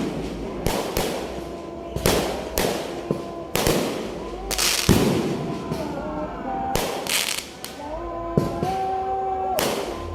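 Fireworks going off in a rapid series of loud bangs, about one or two a second, each trailing off briefly before the next.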